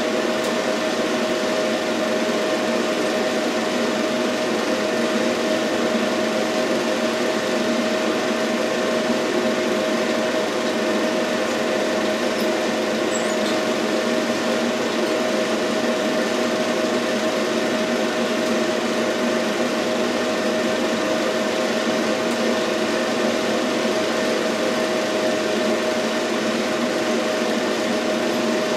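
Film projector running: a steady mechanical whir with a constant hum.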